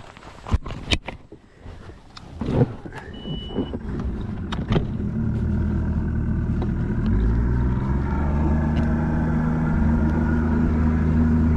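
Several sharp knocks and clunks, then a bass boat's outboard motor running steadily from about four seconds in, growing louder as it settles into a run.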